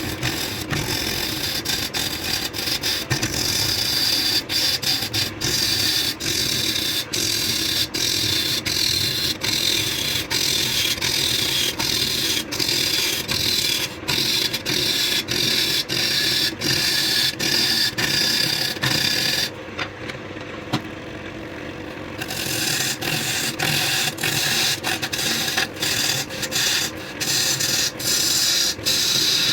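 A wood lathe running with something held against the spinning wood, giving a continuous rubbing, rasping noise over the motor's steady hum. The rubbing stops for about two seconds past the middle, leaving only the hum, then resumes.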